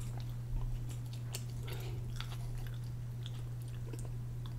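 Close-up mouth sounds of someone chewing a bite of wrap: soft chewing with faint small clicks, over a steady low electrical hum.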